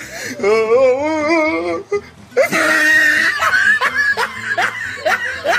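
Men laughing heartily in repeated bursts, with a hissing splash about two and a half seconds in as water is poured from a pot onto a dead chicken in a metal bowl.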